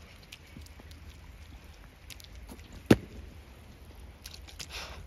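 Rain dripping and pattering on wet paving stones in scattered light ticks, with one sharp, loud knock about three seconds in.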